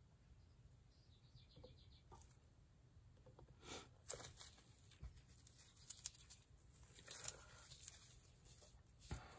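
Faint crinkling and soft taps from a plastic-wrapped hand pressing into wet acrylic paint on a canvas, a scattered handful of short sounds over near silence, most of them in the second half.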